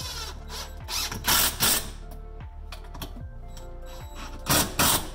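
Cordless impact driver hammering screws into 2x4 lumber. It comes in two short bursts, one about a second in and one near the end, each with two quick pulses.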